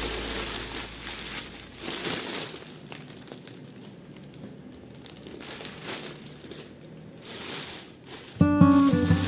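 Irregular crinkling and rustling, coming and going in short bursts, like something being handled close by. Background music comes in near the end.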